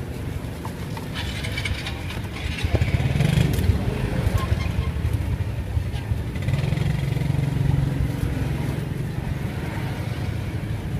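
Motorbike traffic running past, the engine rumble swelling about three seconds in and again around seven seconds. Plastic crinkles close by in the first few seconds.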